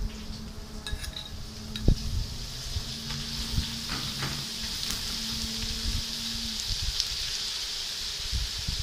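Thin-cut papadam pieces sizzling as they deep-fry in hot oil in a metal kadai. The sizzle builds over the first second or two, with a few clinks of a metal spoon against the pan as they are stirred.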